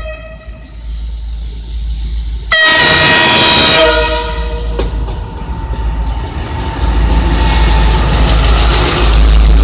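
CNR CKD8H diesel-electric locomotive sounding its horn in one long, loud blast of about a second and a half, just after a short toot ends at the start. The locomotive and passenger cars then roll past close by, the engine and wheel noise growing louder toward the end.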